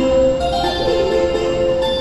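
A station platform melody on the public-address speakers: a bell-like tune of held notes, over a steady low hum.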